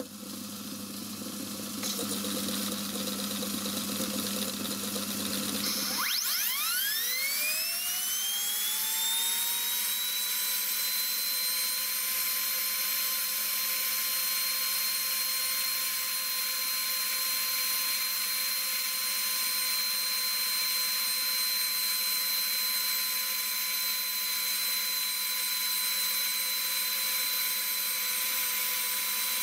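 Air-powered die grinder with a small grinding wheel, mounted in a lathe tool post, spinning up about six seconds in: a steep rising whine that settles into a high, steady pitch. Before it, a lower steady machine hum runs.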